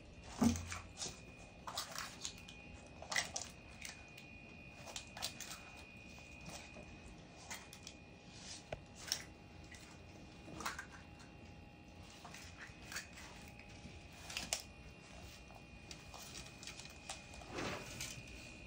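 Scattered crunches and rustles of a tegu lizard in its wood-chip enclosure, with a faint steady high whine underneath.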